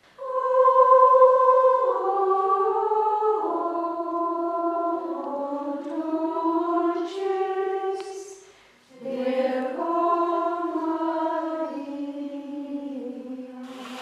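Carmelite nuns' choir of women's voices singing a slow, unaccompanied chant in two long phrases, with a short breath pause about nine seconds in. A few brief hisses come through, the loudest right at the end.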